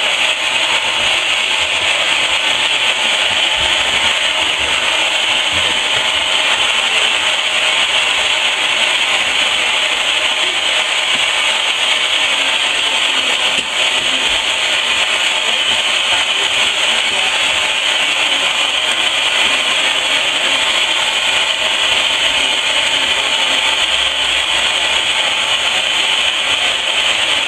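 Steady, loud hiss of steam in the cab of a coal-fired steam locomotive, briefly dipping about halfway through.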